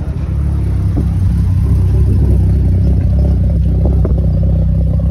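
Mazda RX-7 race car's engine running at low revs as the car rolls slowly past close by, a loud, deep, steady drone that grows louder over the first second.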